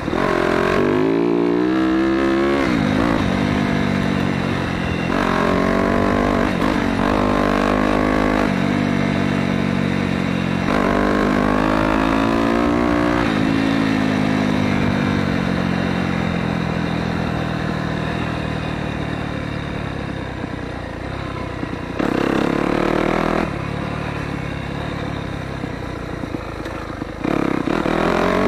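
Dirt bike engine revving hard in repeated surges, its pitch climbing with each twist of the throttle and dropping as it is rolled off. It then winds down in a long coast before short throttle bursts near the end.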